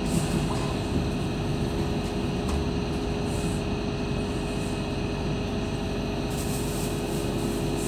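Steady running noise inside a light rail train moving slowly, with a constant hum. A hiss grows louder about six seconds in.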